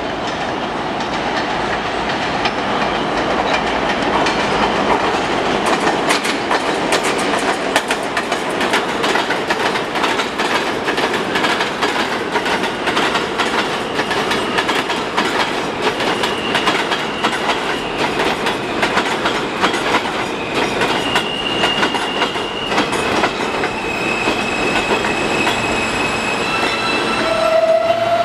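R160 subway train pulling into an elevated station: a rumble that builds, then quick clicks of wheels over rail joints as the cars pass. From about halfway in, steady high-pitched squeals rise as it slows to a stop, and a short, loud, lower tone sounds near the end.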